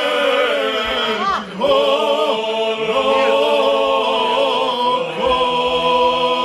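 Men's group singing unaccompanied in the traditional Krajina style, several voices holding long notes together in close harmony, one of them on a microphone. A little over a second in the voices slide down and break off briefly, then come back in on held notes.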